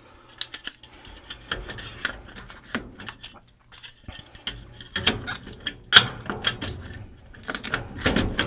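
Irregular sharp clicks, taps and rattles of hands working at the furnace's filter cover panel, coming in clusters and busiest in the second half.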